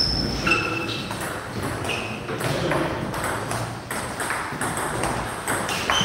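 Table tennis hall sounds: scattered light clicks of balls and bats, with a few short high squeaks, one at the start, one about two seconds in and one at the end.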